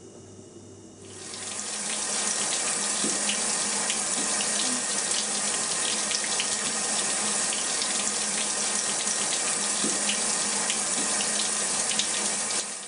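Running water, swelling in about a second in to a steady rush and cutting off abruptly at the end.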